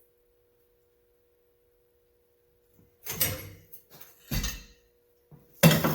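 Near silence for about three seconds, then a few sharp metallic knocks and clatter, the loudest near the end, from a Crescent 1/2-inch wrench being forced against 1/2-inch square steel key stock. The wrench is slipping on the stock and rounding its corners.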